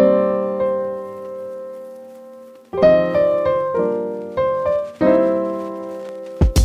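Background piano music: a chord that fades out slowly, then a run of chords struck about every half second. A drum beat comes in right at the end.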